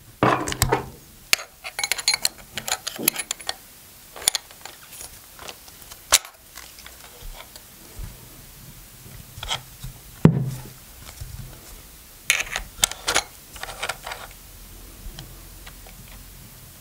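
Irregular clicks, knocks and light metallic rattles from hands working the metal depth limiter on the head of a Parkside PRSA 20-Li A1 cordless rotary cutter, which is switched off. The clicks come thickest in the first few seconds and again a little past the middle.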